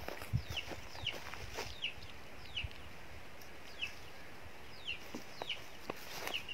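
A bird calling in short high peeps that fall in pitch, repeated irregularly about once or twice a second, with light footsteps on dry ground.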